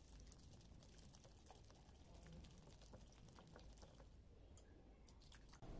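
Faint, irregular clicking of a wire whisk against a glass bowl as a thick flour, sugar and water batter is whisked.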